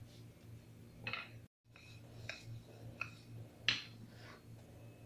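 A few light knocks and taps of a baking tray and a wooden rolling pin being moved on a marble countertop, spaced under a second apart, the loudest near the end. A low steady hum runs underneath, and the sound cuts out completely for a moment about a second and a half in.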